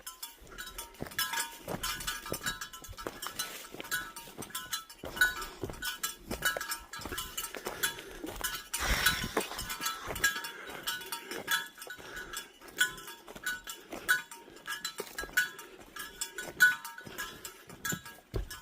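Small metal items jingling and clinking over and over, with bell-like ringing after many of the strikes, as a hiker walks with gear hanging from a backpack.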